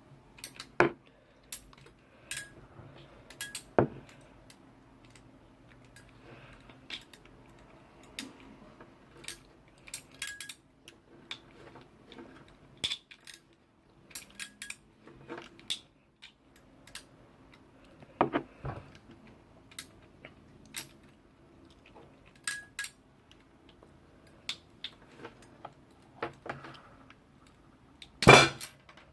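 Hand tool clicking and clinking while stripping the outer jacket off a Cat5 network cable: irregular sharp metallic clicks with handling noise between them, the loudest near the end.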